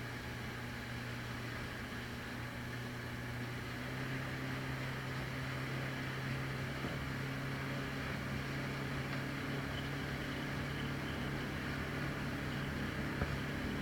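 Motorboat engine running steadily at an even pitch, getting a little louder about four seconds in.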